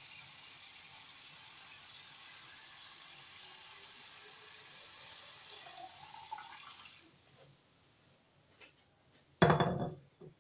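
Water running from a kitchen tap into a glass carafe, stopping about seven seconds in. About two seconds later there is a short, loud knock.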